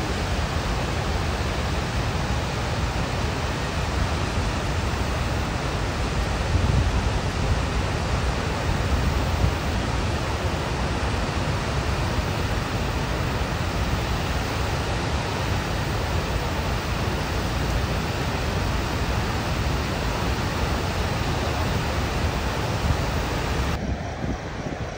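Blue Earth River in flood rushing and churning past the Rapidan Dam: a steady, loud rush of water. Near the end it drops suddenly to a fainter, more distant rush.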